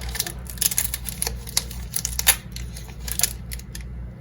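Foil Pokémon booster pack being handled and opened: a run of sharp crinkles and clicks, with a steady low hum underneath.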